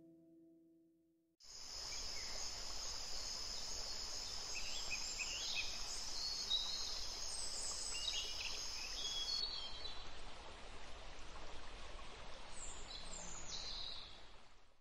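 Nature ambience of insects and birds. A steady high-pitched insect drone over a low hiss, with scattered short bird chirps, begins about a second and a half in; the drone stops about two-thirds of the way through while the chirps go on until it fades out near the end.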